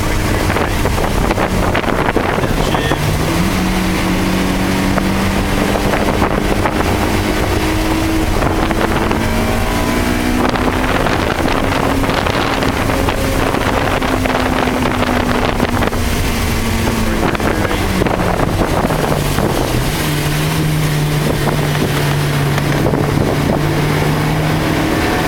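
Car engine heard from inside the cabin while lapping a wet track. The revs step up early on, climb slowly, then ease off and drop near the end, over a steady hiss of tyre spray and wind.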